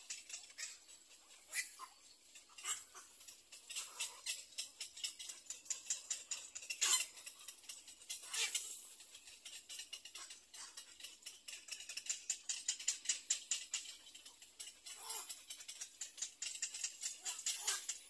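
Rapid, high-pitched ticking chatter of small animal calls, with a few louder calls standing out, the strongest about seven seconds in and another near eight and a half.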